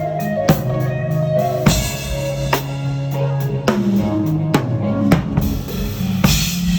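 Music with a drum kit: sharp drum hits about once a second with bass drum, over held bass and guitar notes, as in a band sound check.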